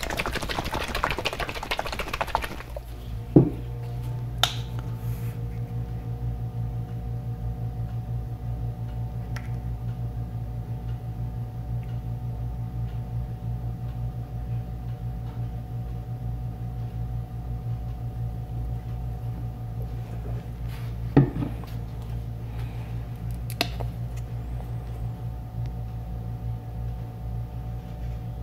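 A small electric motor humming steadily, switching on with a click about three seconds in and clicking again around twenty-one seconds in. There is a short rustle at the start.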